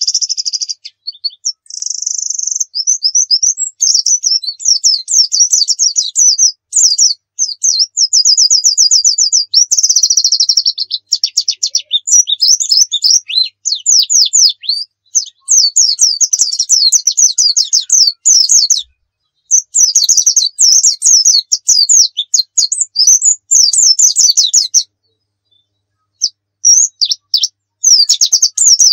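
Pleci dakun white-eye singing a fast, rapid-fire 'nembak' song: long unbroken runs of quick high-pitched chirps and trills with varied fills, broken by short pauses, the longest about a second and a half near the end.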